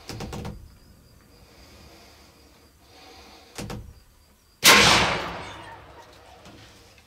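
A single gunshot fired at feral hogs about four and a half seconds in, loud and sudden, its echo dying away over about two seconds. A couple of short knocks come before it.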